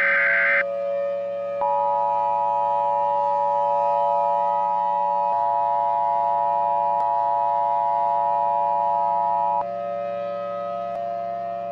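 Emergency Alert System broadcast: a short buzzy SAME data burst ends, and about a second later the EAS two-tone attention signal sounds, two close pitches held together steadily for about eight seconds before cutting off suddenly. A steady electronic background drone runs underneath and carries on after the attention tone stops.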